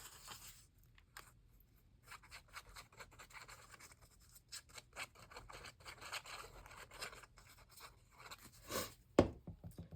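Paper being glued down into a journal by hand: a faint run of quick scratchy rubbing and rustling strokes, with one sharp click near the end.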